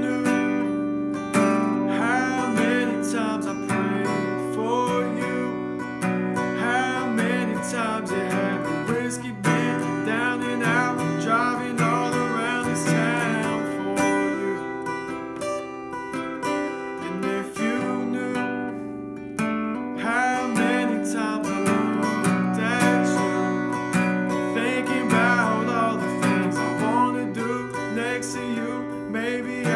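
Acoustic guitar strummed in steady chords accompanying male voices singing a song.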